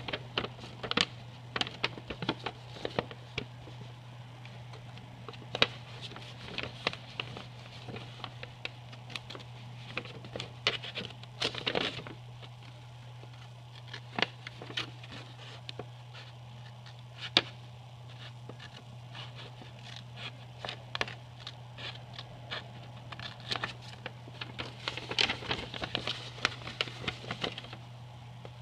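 A sheet of printer paper rustling and crackling as it is handled, with sharp clicks and short snips of small scissors cutting into the sheet's centre crease. A steady low hum sits underneath.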